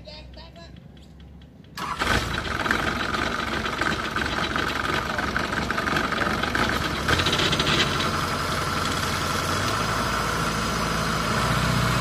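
Engine of a riding paddy-field tractor with cage wheels and a rotary tiller, running loud and steady as it works through the mud. The sound jumps up suddenly about two seconds in.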